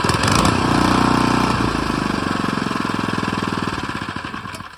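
Single-cylinder four-stroke 79cc Predator engine on a long-tail mud motor, running with a steady idle chug. It revs up briefly about a second in and drops back to idle, then winds down and cuts off just before the end as it is switched off.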